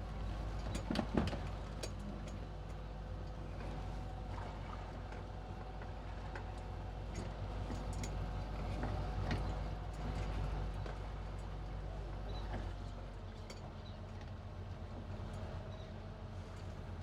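Boat engine running steadily at low speed during slow close-quarters maneuvering, with a couple of sharp knocks about a second in. The low engine sound eases off near the end.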